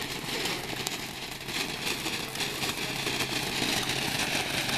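Ground firework spraying a fountain of sparks: a steady rushing hiss with fine crackling.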